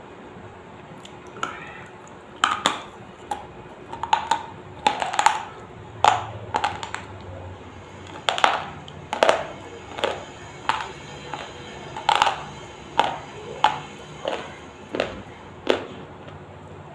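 A person biting and chewing a hard, chalky grey stick, giving a string of crisp, uneven crunches about every half second to a second.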